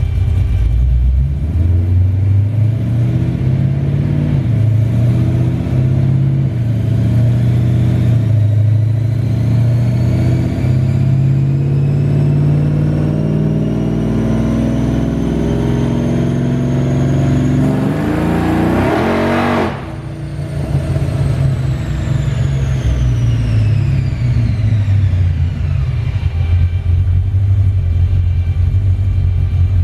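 Ford Lightning pickup's V8 making a wide-open-throttle pull on a chassis dyno. The engine note climbs steadily for about eighteen seconds and peaks in a loud rush. Then the throttle closes and a whine falls away as it coasts down, leaving the engine running low.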